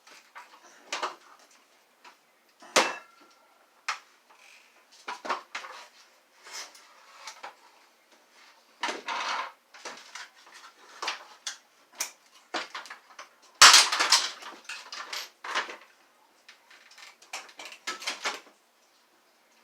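Parts of a Kenmore vacuum cleaner wand being handled and pried apart by hand: irregular clatters, clicks and scrapes of plastic and metal pieces. The loudest is a sharp knock about fourteen seconds in, with a quick run of clicks near the end.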